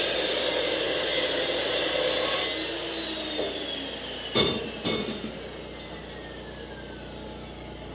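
Chop saw finishing a cut through steel round bar, then the motor winding down with a steadily falling whine as the blade coasts to a stop. Two sharp metallic clanks, about half a second apart, come midway as the cut steel is handled.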